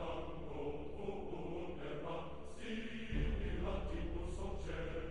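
Background music with choir-like chanted vocals over a steady bass; the bass gets louder about three seconds in.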